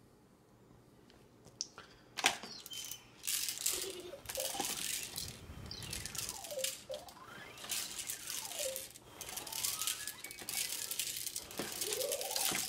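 A plastic spoon scraping and rattling against a stainless-steel bowl of noodles as the bowl is handled. It is a dense run of clicks and scrapes starting about two seconds in, with a few short squeaky gliding tones among them.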